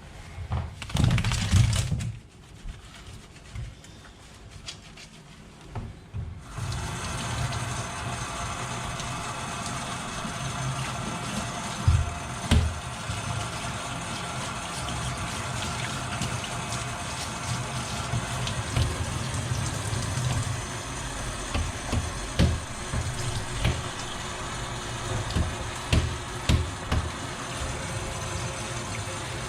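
Water running steadily from a tap or shower spray, turned on suddenly about six seconds in, with occasional low thumps.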